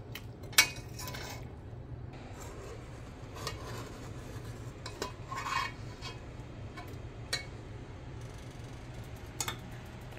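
A metal spoon scraping and clinking against the inside of a stainless steel pot, lifting out burnt-on food residue that has been softened by simmering in detergent water. Short sharp clinks come every second or two, the loudest about half a second in, over a steady low hum.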